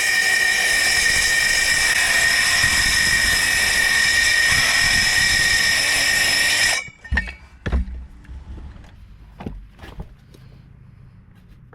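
Battery-powered reciprocating saw running steadily with a motor whine as it plunge-cuts into wood, stopping suddenly about seven seconds in. A few sharp knocks follow.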